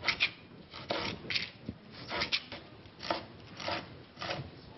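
A serrated bread knife sawing through cherry tomatoes on a cutting board: a run of short rasping strokes, about two a second.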